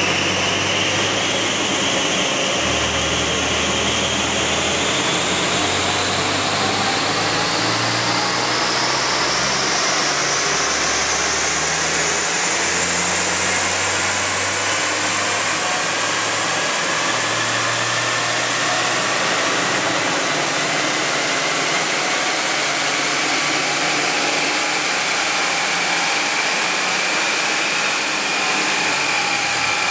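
Smart ForTwo (451) running on a rolling-road dynamometer, with a large floor fan blowing on it: a steady engine and roller noise with a whine that rises slowly and evenly in pitch as road speed builds through a dyno run.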